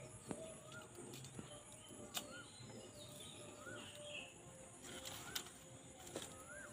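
Faint bird chirps: short notes, each rising then falling, repeated about once a second. A few sharp clicks break in, the loudest about two seconds in and again about five seconds in.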